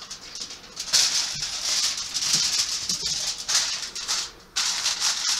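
Aluminium foil crinkling and rustling as it is handled and pressed over roasting pans, in several bursts.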